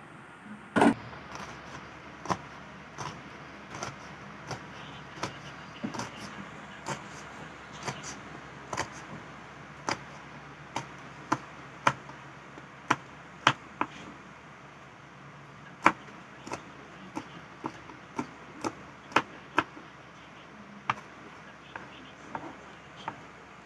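Kitchen knife slicing red chili peppers on a cutting board: sharp, irregular knocks of the blade striking the board, about one or two a second, with a short pause midway.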